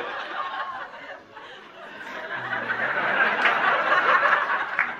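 Theatre audience laughing, dying down about a second in and then swelling again.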